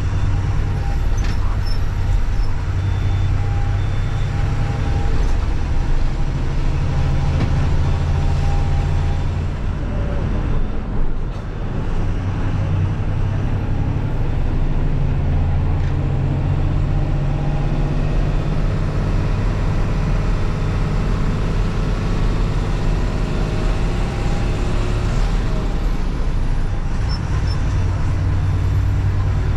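Bus's diesel engine and road noise heard from inside the driver's cabin while driving: a steady low drone that eases for a moment about ten seconds in, then picks up again.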